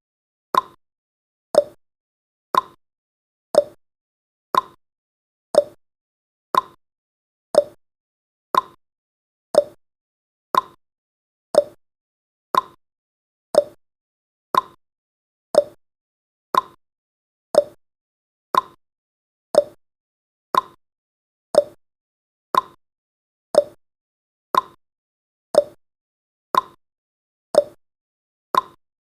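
Clock-style tick-tock sound effect of a countdown timer: one short tick each second, alternating between a higher tick and a lower tock, steady and even.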